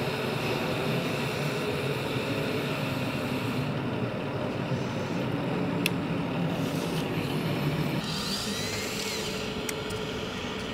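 Radio-controlled 1:14.5 scale excavator and tracked loader working soil: a steady electric motor and hydraulic pump hum, with a couple of sharp clicks about six seconds in and near the end.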